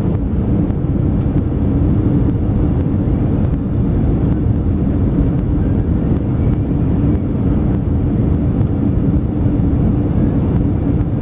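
Airbus A320 cabin noise on final approach: the engines and rushing airflow run steadily, heard from inside the cabin over the wing, with a steady hum under the roar.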